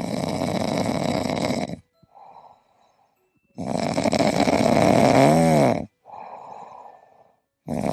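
Dog snoring loudly: two long rasping snores, each followed by a quieter breath, the second snore with a wavering whistle in it.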